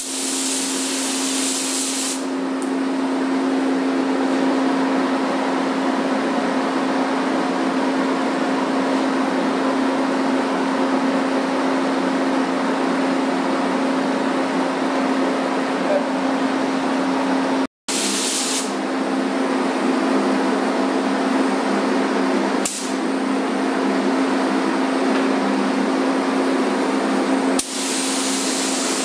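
Gravity-feed paint spray gun hissing as it sprays, in bursts at the start, a little past halfway and again near the end, over a steady droning hum.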